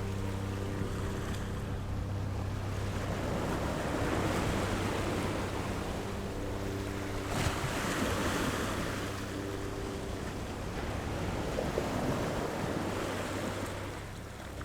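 Ocean waves breaking and washing on a shore, the surf swelling and easing every few seconds.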